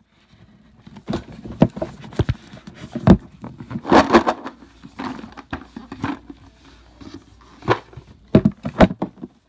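Hands fumbling with the lid of a storage box, trying to pry it open one-handed: irregular knocks, clicks and scrapes, the loudest knocks about three and four seconds in.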